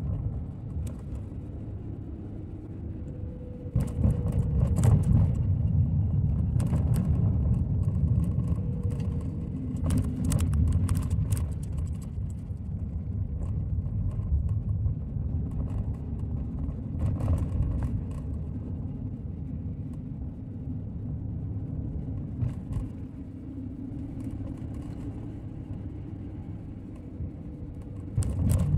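Low rumble of a car's engine and tyres heard from inside the cabin while driving, louder from about four seconds in, with scattered light knocks and rattles.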